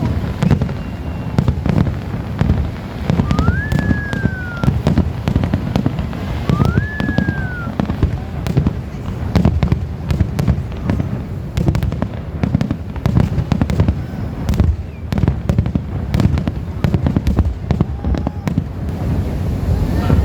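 Fireworks display: a dense, continuous run of low booms and sharp crackling bangs, with two short whistles that rise then fall, about 3 and 6.5 seconds in.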